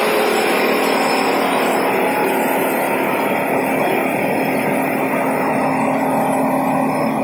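Fibre carding machine running steadily, driven by an electric motor through a flat nylon belt: a continuous mechanical running noise with a constant-pitch hum.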